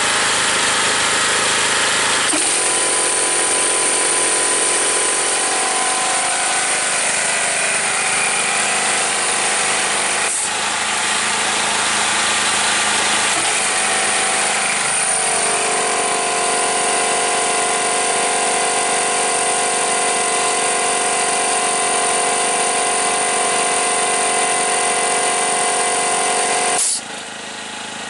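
Piston air compressor with a 50-litre tank running under load as it fills, rattling steadily, with a small petrol generator engine running underneath it. Near the end the sound drops sharply in level.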